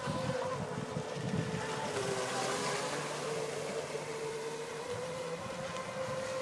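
Aquacraft Rio 51 RC speed boat with a water-cooled Leopard 5698 910kV brushless motor on 10S, running flat out: a steady, distant high motor whine that dips slightly in pitch about two seconds in and comes back up, over a hiss of spray as the hull cuts through the water.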